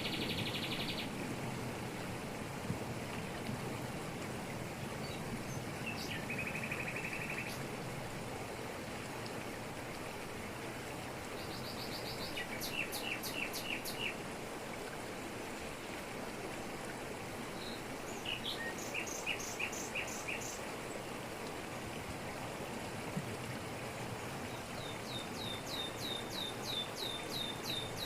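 Steady rush of a waterfall falling over rocks, with forest birds calling over it: short trills at the start and about six seconds in, bursts of quick chirps around the middle, and a run of rapid repeated notes near the end.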